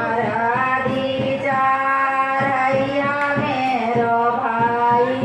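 A woman's voice singing a melody with long held notes that bend from one pitch to the next.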